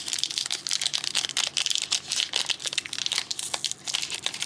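Trading card pack wrapper crinkling and tearing as it is worked open by hand, a dense run of quick crackles.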